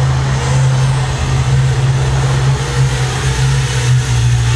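FPV quadcopter's brushless motors and propellers buzzing steadily in flight, the sound carrying in a concrete parking garage.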